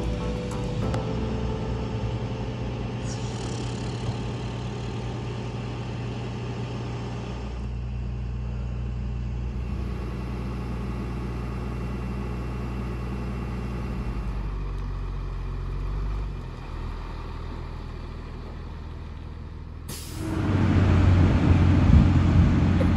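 Heavy flatbed tow truck's engine running with a steady low hum. About 20 seconds in, a much louder truck engine rumble comes in suddenly.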